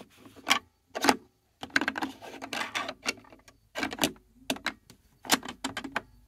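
Irregular clicks, knocks and rattles of hard plastic as a toy washing machine is handled and its parts are lined up.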